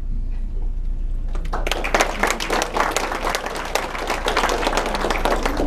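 Audience of parents and guests applauding, the clapping starting about a second and a half in.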